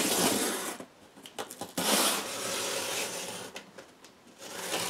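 Packing tape being peeled off the top seam of a large cardboard box, in two long rips, the second lasting almost two seconds.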